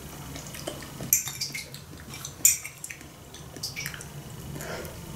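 Eating at a table: a metal fork clinks and scrapes on ceramic plates several times, the loudest clink about two and a half seconds in, with chewing between.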